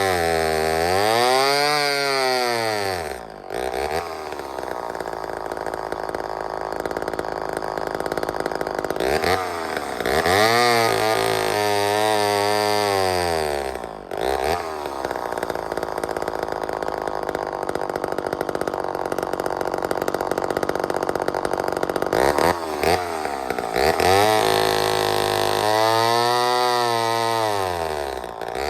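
Vintage Lombard chainsaw's two-stroke engine running, throttled up three times, each time rising in pitch and falling back over a few seconds, with steady lower-speed running in between. The owner notes it runs extremely rich when the trigger is pulled and then leans out, which he suspects is a carburetor fault.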